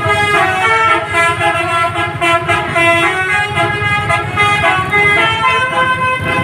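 Indonesian bus 'telolet' horn, a basuri multi-tone air horn, playing a tune in a run of stepped notes without a break, over a low rumble.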